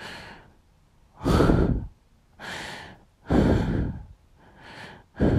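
A woman breathing heavily and sighing: five breaths about a second apart, louder and softer ones alternating.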